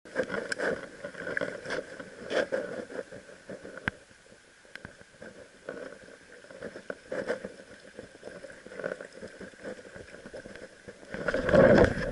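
Shallow mountain stream running over stones, close to the microphone, with scattered knocks and rustles of handling. A louder scuffling burst comes near the end.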